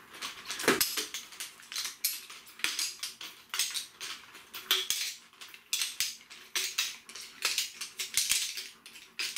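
Shock-corded aluminium poles of a Helinox Chair One frame clinking and clattering as the frame is taken apart and folded up: a rapid string of light metallic clicks and rattles.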